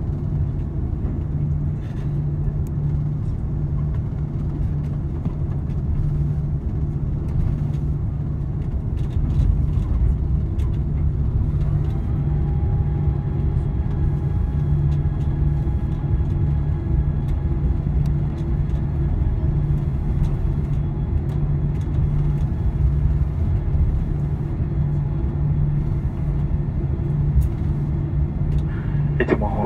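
Airbus A340-300 cabin noise heard from inside near the wing: a steady low rumble that grows a little louder about ten seconds in. A thin steady whine joins it about two seconds later.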